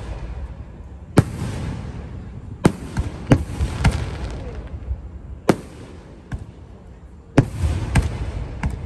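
Aerial firework shells bursting overhead: a series of sharp bangs, about eight in all at uneven spacing, each followed by a lingering hiss.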